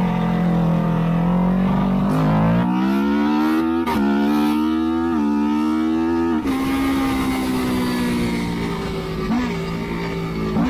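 Racing motorcycle engine heard from the bike's own onboard camera. It runs steady, then pulls up in pitch through about three gear changes, then settles to a steady low-speed run with two brief throttle blips near the end.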